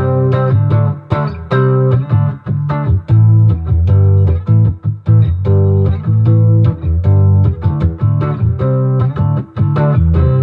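Electric guitar played through an Acoustic Control Corp 260 solid-state amp head into a 2x12 cabinet, picking a run of single notes and chords. The tone is bass-heavy with the treble cut, from the manual's jazz setting: bass all the way up, Variamp range one, effect cranked.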